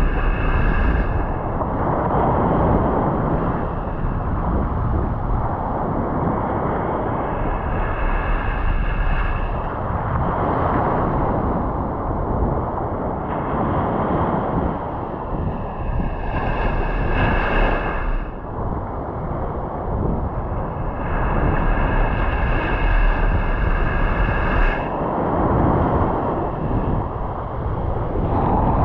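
Surf breaking and washing on a beach, with wind buffeting the microphone, swelling and easing every few seconds. A high whine comes and goes several times.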